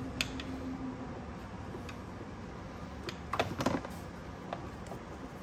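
Scattered light clicks and taps of a hand tool against plastic parts and clamps, as a hose and clip are worked loose in an engine bay. There is a single click near the start and a quick cluster of taps about three and a half seconds in.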